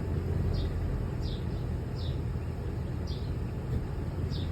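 2002 Toyota Tundra's engine running with a steady low rumble: the sputtering noise the owner calls weird. Short, high, falling chirps repeat about once a second over it.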